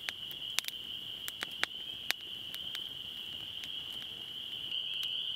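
Campfire of dry sticks crackling, with sharp, irregular pops, over a steady high-pitched chorus of night insects.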